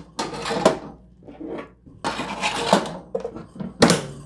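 Metal wire mesh shelves rattling and scraping as they are slid into the rails of a 12.7-quart air fryer oven, in several separate clatters. A sharp clack near the end, as the oven door is shut.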